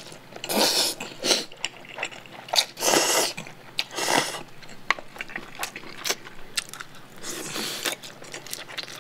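A person slurping up mouthfuls of chewy cold spicy noodles (jjolmyeon) in about four long hissing slurps, with short wet chewing clicks in between.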